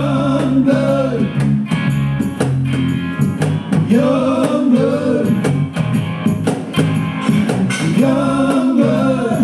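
Small band playing live: guitars strumming a steady rhythm under singing voices, with a sung phrase returning about every four seconds.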